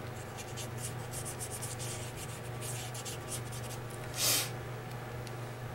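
Short, quick strokes of a Wink of Stella glitter brush pen on thin patterned paper, with one louder, longer swish about four seconds in.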